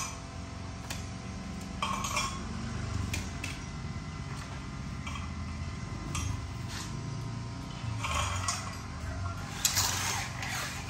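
Aluminium window frame parts clinking and knocking lightly as they are handled and set in place, a few scattered taps, then busier clusters of rattling knocks about eight and ten seconds in.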